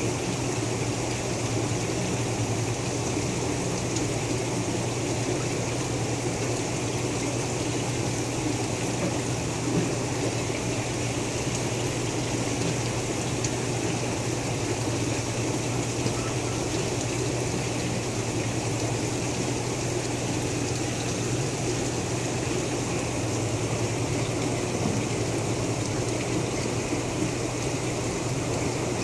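Steady water circulation in an aquarium holding tub: running, trickling water over a constant low electric hum of the pump.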